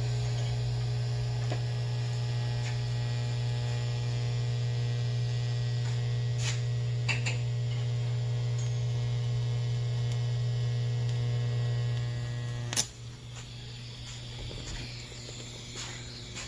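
Welding machine humming steadily at mains frequency, cutting off with a click about 13 seconds in.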